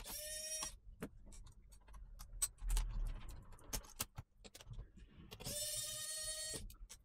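Small electric screwdriver motor whining in two short runs, one at the very start and one for about a second near the end, as it works the laptop's hinge screws. Between the runs, scattered sharp clicks and taps of tools on the plastic chassis.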